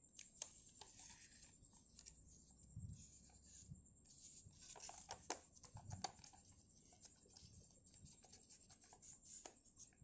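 Faint rustling, crinkling and light scraping of a sheet of origami paper being handled and creased by hand, with scattered small ticks, busiest about halfway through.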